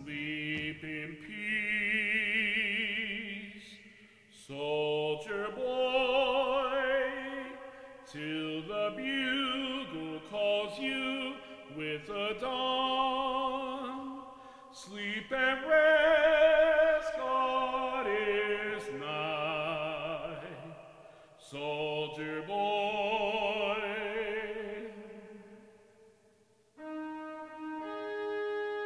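Recorded classical music: a singer with heavy vibrato sings slow phrases over instrumental accompaniment. Near the end a steady held instrumental note begins.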